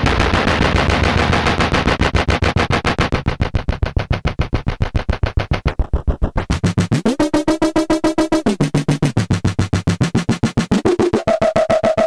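WMD Kraken eurorack synthesizer module driven by a fast clock: a rapid, even stream of gritty pitched hits whose pitch steps up and down. About two-thirds of the way in it briefly settles into a clearer ringing tone.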